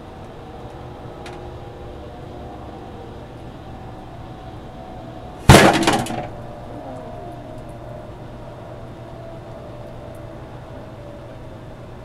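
Microwave oven running with a steady hum; about five and a half seconds in, a travel-size bottle of alcohol heating inside it bursts with one sudden loud bang that dies away within about a second, and the oven keeps running afterwards.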